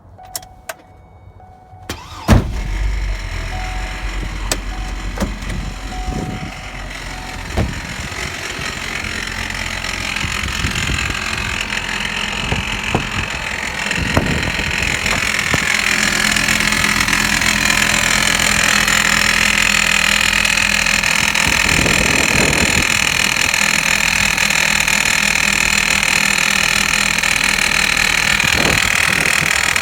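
2006 Hummer H3's engine starting about two seconds in, then running at idle with a rattling noise that began after the serpentine belt was replaced.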